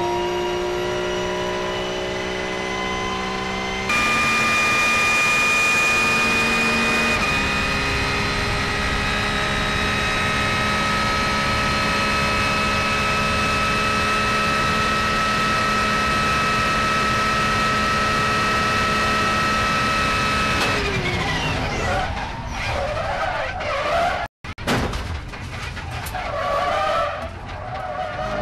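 Onboard sound of a Porsche 911 GT3 R's flat-six racing engine. The revs rise over the first few seconds. From about seven seconds in, the engine holds a steady note for a long stretch. About twenty seconds in, the pitch falls away as the driver lifts, and the engine runs on at uneven, lower revs.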